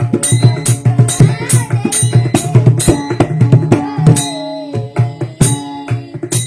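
Varkari devotional music: a hand drum beaten in a steady, quick rhythm with bright cymbal-like strikes over it. A singing voice glides down on a held note around the middle.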